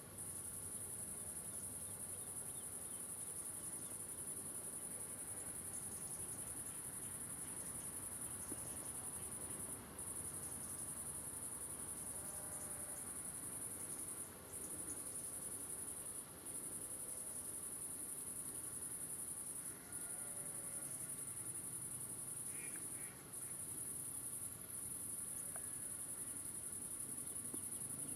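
Crickets singing: a steady, high-pitched chorus that drops out for a moment about six times.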